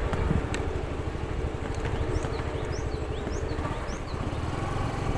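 Motorcycle engine running at low speed with a steady rumble from wind and the rough dirt road. A few faint high chirps sound around the middle.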